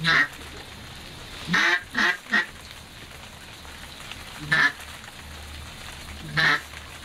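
A man snoring, each snore coming out as a short quack like a duck call. There is one at the start, three in quick succession about one and a half seconds in, then single ones about two seconds apart.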